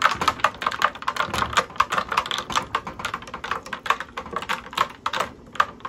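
Ice-filled pitcher of horchata being stirred, ice cubes knocking against the pitcher in a rapid, uneven run of clicks and clinks.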